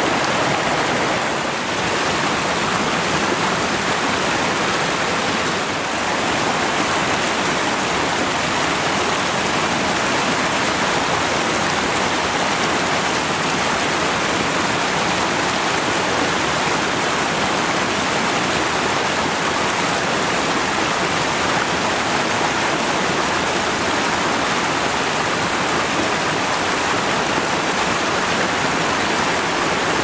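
Mountain stream water rushing steadily, a dense even water noise with two slight dips in level in the first six seconds.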